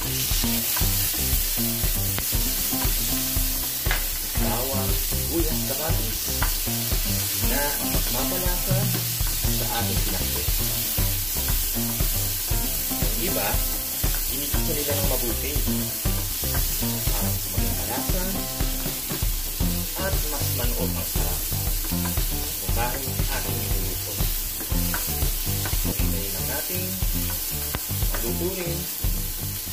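Garlic, onion and tomato sizzling in hot oil in a nonstick frying pan, stirred with a spatula that scrapes and taps against the pan again and again.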